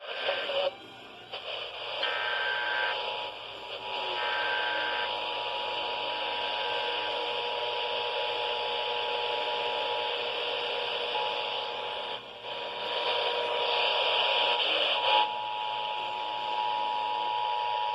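Emergency Alert System alert tones received through a radio with heavy static. Short data bursts come near the start, then the steady two-tone attention signal holds until it stops about fifteen seconds in.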